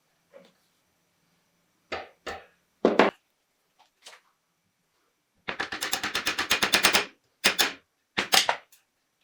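Sharp clicks and knocks of hand work on the pistol's parts and tools: a few separate knocks, then a quick rattle of about ten clicks a second for over a second, then two more knocks near the end.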